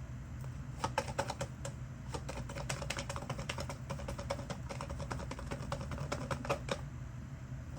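A tarot deck being shuffled by hand: a fast, irregular run of light card clicks that lasts several seconds and stops shortly before the end.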